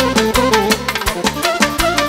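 Live band playing fast dance music: a quick, steady beat with a melodic lead line over it.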